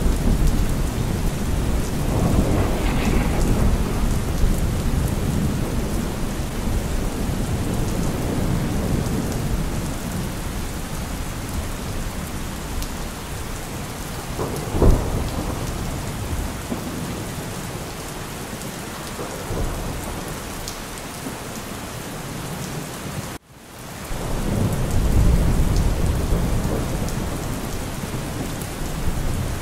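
Thunderstorm: steady rain with low rolling thunder rumbles swelling and fading. A single sharp crack about halfway through, and near the end the sound cuts out for an instant before another rumble builds.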